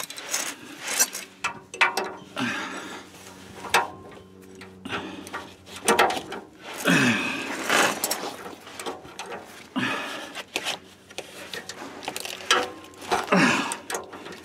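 A wrench working the rusted nuts on an exhaust pipe's three-bolt flange: repeated metallic clicks and scraping strokes as the seized nuts are forced, with a few low grunts of effort.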